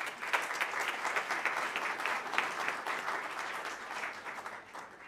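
Audience applause: many people clapping together, tapering off near the end.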